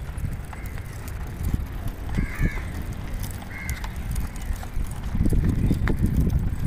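Crows cawing a few times, in short single caws, over a low rumble that swells near the end.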